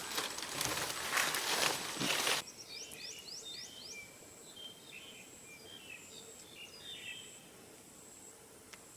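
A noisy rustling for the first two seconds cuts off abruptly. Then small birds chirp: a run of five quick rising chirps, followed by softer scattered chirping over a faint steady high-pitched whine.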